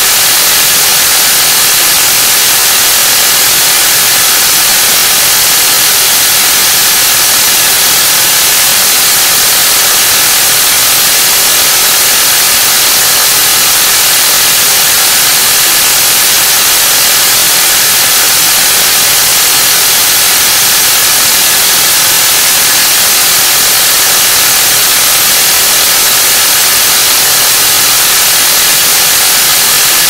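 Loud, steady TV static: an even white-noise hiss with no change, sharpest in the high end.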